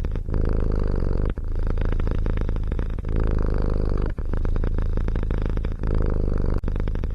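Domestic cat purring close to the microphone: a steady, rapidly pulsing purr that breaks briefly every second or so as the cat breathes in and out.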